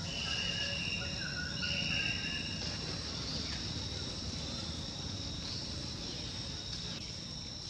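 Steady high-pitched drone of an insect chorus, with a few short chirping calls in the first two or three seconds and a low rumble underneath.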